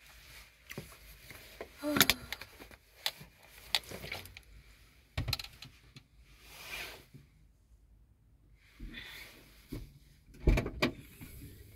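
Scattered knocks and clicks of things being handled, loudest about two seconds in and near the end, with two brief rustles in between.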